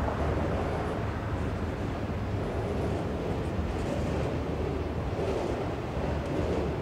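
Norfolk Southern freight train rolling past on an upgrade: a steady low rumble of cars and wheels on the rails.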